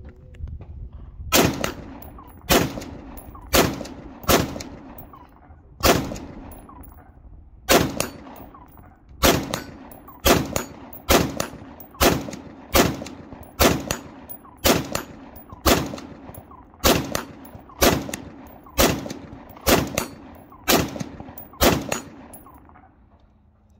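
Left-handed Stag Arms AR-15 rifle fired semi-automatically, about twenty single shots, spaced unevenly at first and then about one a second, with steel targets ringing when hit.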